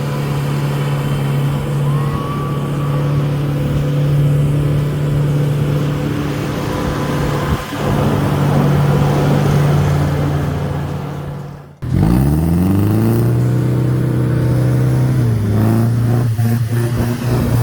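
Off-road vehicle's engine running hard at steady high revs. After a brief drop-out past the middle, it revs up and holds, then eases to a lower pitch and holds again.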